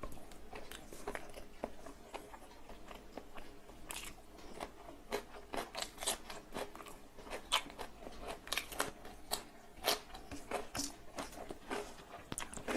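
Close-up chewing and mouth sounds of a person eating in big bites: a run of irregular wet smacks and clicks, busier from about four seconds in.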